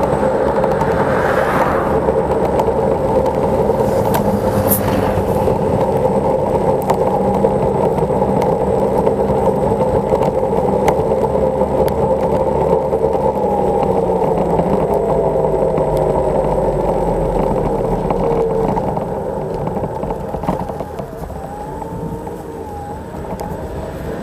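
Xiaomi Mijia M365 electric scooter ridden at about 22 km/h on a wet street: steady motor hum with tyre and wind noise, growing quieter for the last few seconds.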